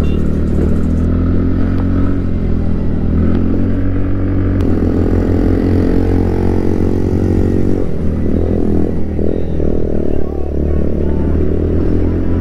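Scooter engine running while riding, its note climbing about halfway through and wavering near the end as the throttle changes, over steady low road rumble.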